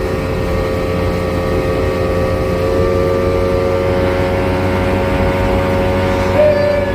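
A motorboat's main engine running steadily under way, with a constant whine and wash beneath it. About two and a half seconds in, a second tone in the engine note rises slightly.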